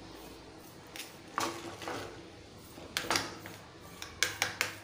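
Steel spoon clinking and scraping against a metal tray as the hot Mysore pak mixture is patted flat: one knock about a second in, two around three seconds, and a quick run of three near the end.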